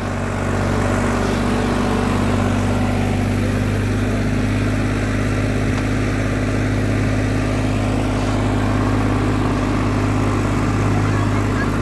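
Sonalika DI 35 tractor's diesel engine running steadily under heavy load as it pulls a 17-disc harrow through the soil.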